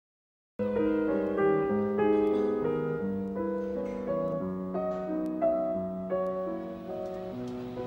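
Piano music that starts suddenly about half a second in, a melody of held notes and chords.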